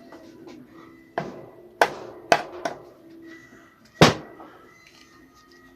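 About five sharp metal knocks and clacks, the loudest about four seconds in, as a tight gearbox input shaft is worked loose from a Kawasaki ZZR600 crankcase half.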